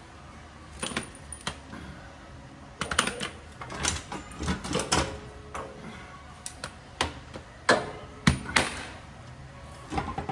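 Irregular metallic clinks and knocks of hand tools and bolts being handled, with a few sharper clanks in the second half.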